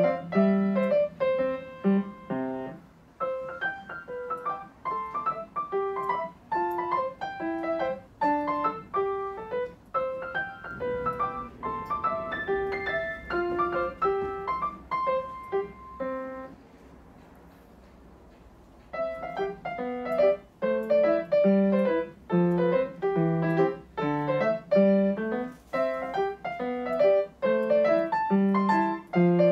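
Background piano music playing a gentle melody of separate notes, pausing for about two seconds a little past the middle before picking up again.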